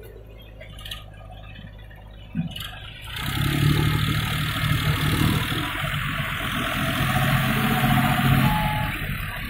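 A John Deere 5045 D tractor's diesel engine, quiet at first with two faint knocks, then much louder from about three seconds in as the tractor pulls away with its loaded trolley and passes close by, running under load at a steady pitch.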